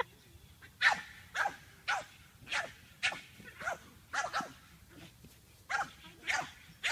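Small bulldog barking in a run of short barks, about two a second, with a pause of about a second after the first four seconds.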